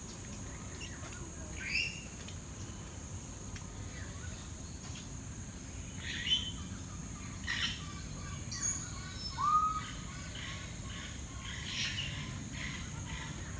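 Assorted birds calling in an aviary: scattered short chirps and a slurred whistle, over a steady high-pitched hum.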